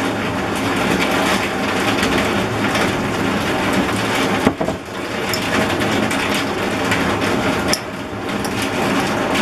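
A steady noisy background hum, over which a metal spoon clicks and scrapes against a glass jar a few times as chopped toona leaves are stirred into olive oil.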